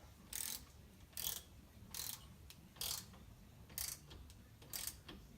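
Ratchet wrench tightening a bolt on a dirt bike engine: six short ratcheting strokes, about one a second.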